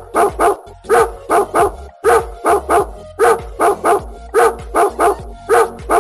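Dog barking in quick runs of three barks, the runs repeating at an even pace about once a second.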